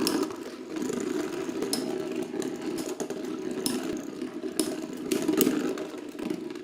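Two Beyblade X spinning tops whirring and grinding as they spin in a plastic stadium, with sharp clacks several times as they strike each other.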